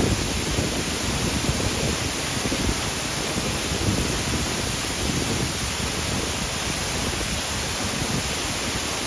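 Waterfall pouring: a steady, unbroken rush of falling water, deepest at the low end.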